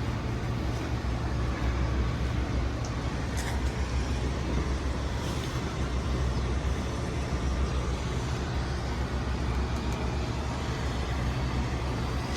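Wind buffeting the microphone high in an open bell tower, a steady low rumble with a faint hiss and a few light ticks.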